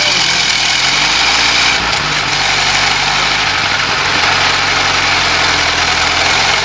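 Ford Model T four-cylinder flathead engine idling steadily on a freshly assembled bare chassis, with one small shift in pitch about two seconds in.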